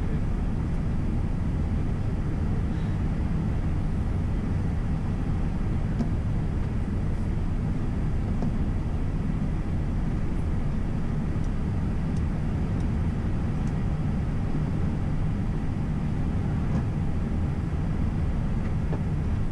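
Steady low rumble inside an Airbus A320's cockpit as the airliner rolls along the runway after landing and slows toward the runway end.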